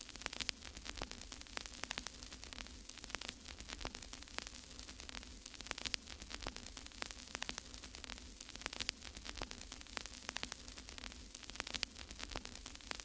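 Faint crackling static: irregular sharp clicks and pops over a low steady hum.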